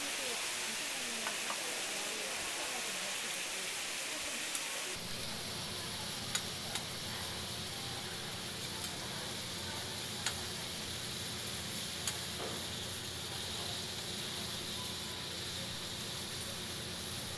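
Tteokgalbi (Korean minced-beef patties) sizzling in grease on a flat steel griddle, with a few sharp clicks of metal utensils on the griddle.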